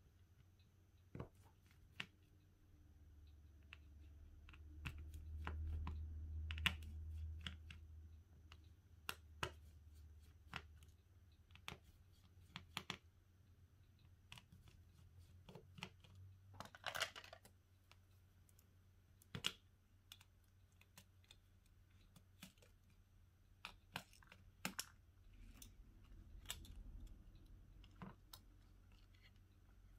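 Faint, scattered small clicks and taps of hand tools and plastic phone parts being handled during disassembly of a phone for a screen replacement, with a brief scraping sound about seventeen seconds in.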